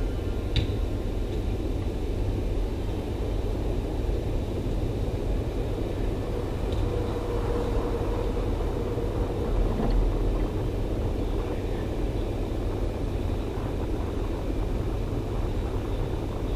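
Steady low rumble and hiss of a large indoor soccer hall, with a sharp ball kick about half a second in and a couple of fainter knocks later.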